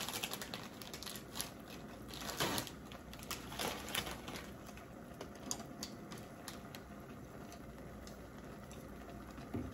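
Plastic ramen packets crinkling and rustling in the hands, in short clicky crackles that thin out after about four seconds, over the steady faint hiss of water heating in an electric hot pot.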